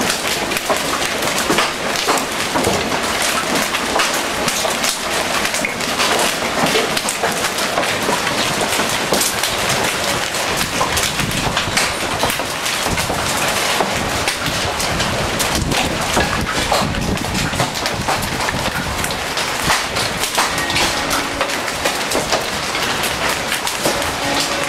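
Hail mixed with rain pelting down: a dense, steady clatter of countless small hits on paving and leaves.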